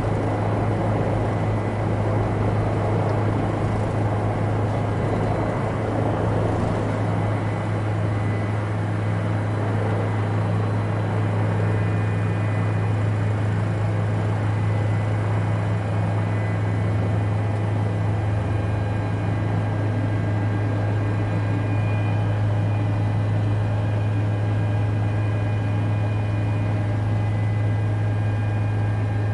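Helicopter heard from inside the cabin in steady flight: a constant low drone of engine and rotor, with faint steady high whines above it.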